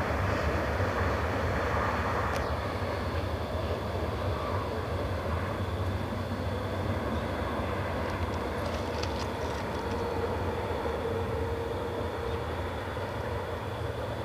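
Freight train rolling away, a steady rumble of wheels on rails that slowly fades as the last car recedes.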